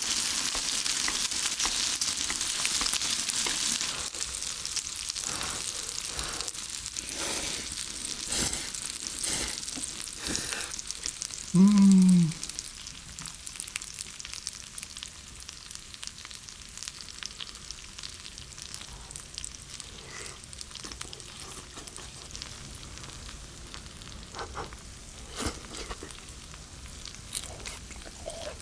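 Pork neck meat frying and sizzling in a pan, loud for the first few seconds and then dying down, with scattered clicks and knocks of cookware. About twelve seconds in there is one short, loud voiced sound with a falling pitch.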